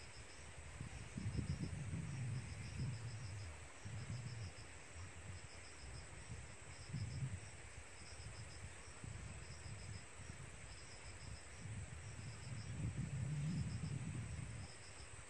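Crickets chirping in short high pulsed trills about once a second over a thin steady high tone. An uneven low rumble runs beneath them, loudest about a second in and again near the end.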